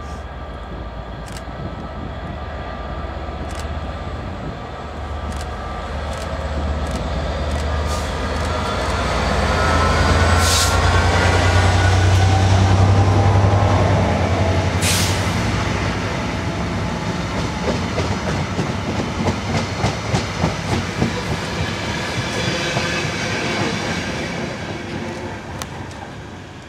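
Class 67 diesel-electric locomotive with its two-stroke V12 engine opened up, passing at speed. The deep engine drone swells to a peak about halfway through, then the coaches roll past with a rhythmic clickety-clack of wheels that fades away near the end.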